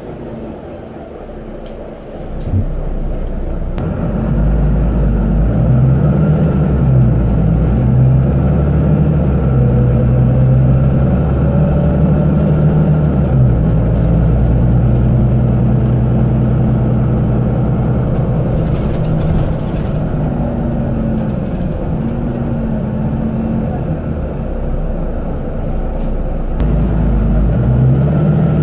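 Volvo B9TL double-decker bus's six-cylinder diesel engine heard from the upper deck: after a sharp click about two and a half seconds in it gets louder as the bus pulls away, then runs under load with its pitch rising and dropping several times through gear changes, with light rattles from the bodywork.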